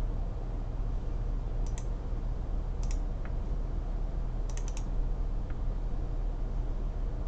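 A few sharp computer clicks, some single and some in quick clusters, about two, three and five seconds in, over a steady low hum.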